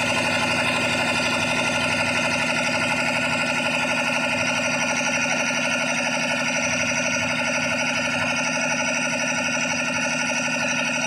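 5 hp tank-mounted air compressor running steadily, its pump compressing air into the tank.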